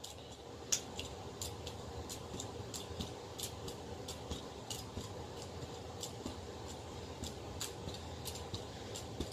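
Light, sharp clicks at an irregular pace, about two or three a second, from small hard objects being handled.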